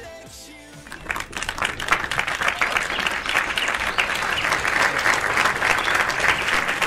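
A crowd applauding, a dense steady clapping that starts about a second in as the music before it fades out.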